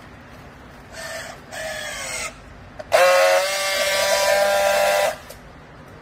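Handheld battery-powered strapping tool on a bale strap: two short bursts of its tensioning motor, falling slightly in pitch as the strap draws tight. After this comes about two seconds of a loud steady buzz as the tool friction-welds the strap seal.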